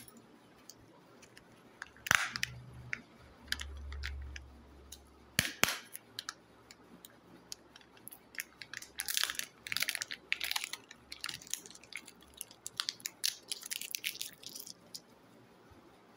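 Kinder Joy egg being unwrapped by hand: the foil wrapper crinkles and crackles in quick runs through the second half, after a couple of sharp clicks from handling the plastic egg.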